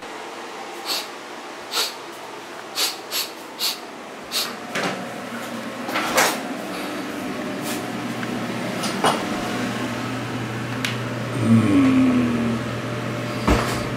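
Kitchen clatter: a series of sharp knocks and clicks, like cupboard doors and dishes being handled, with a steady low hum joining about five seconds in and a brief squeak near the end.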